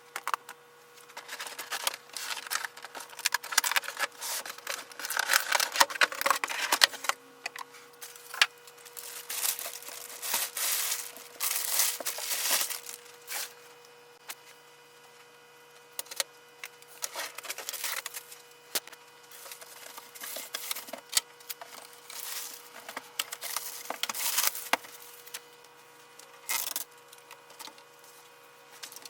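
Printer being unboxed: cardboard box and packing material tearing, crinkling and rustling in irregular bursts, with scattered knocks and clicks as parts are handled.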